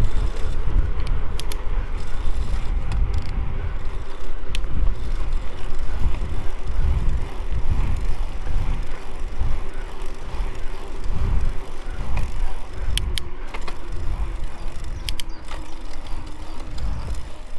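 Mountain bike speeding down a gravel descent: a steady low rumble of tyres on gravel and wind, with a few sharp rattles of the bike now and then.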